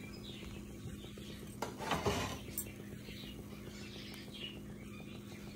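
Frying pan with an omelette cooking on a stovetop: a steady low hum under faint scattered high chirping sounds, and a brief clatter of the pan about two seconds in.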